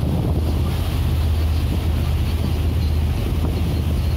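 Motorboat engine running with a steady low drone, with wind buffeting the microphone.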